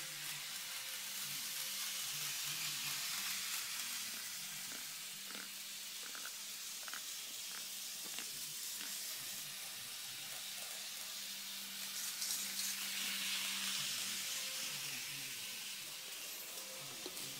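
Kato N gauge model train running on its track: a steady low whir from its small motor and wheels under a faint hiss, with a few light clicks.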